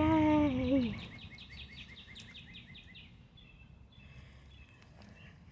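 A bird's rapid trill: quick repeated chirps, about eight a second, for some three seconds, followed by a few fainter notes.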